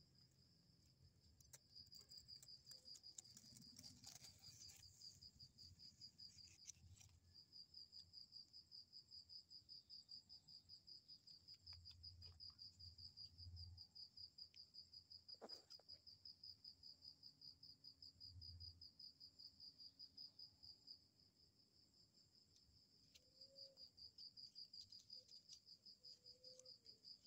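Faint cricket trilling at night: a fast, high, pulsing trill that runs on steadily and breaks off briefly a few times. A few soft low thumps are heard in the middle.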